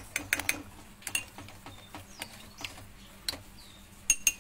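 Metal spoon stirring cornstarch and water in a small bowl, clinking against the bowl in irregular taps: a quick run of clicks at the start, scattered single ticks, and two sharp, loud ones near the end.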